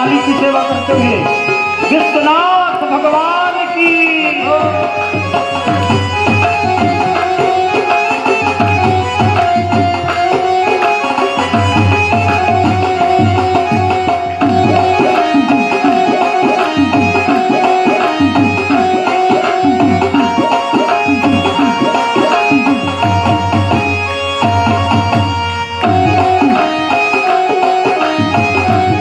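Instrumental interlude of a Hindi devotional bhajan: a tabla keeps a steady beat under a melody instrument holding long notes, with a few gliding melodic phrases in the first seconds.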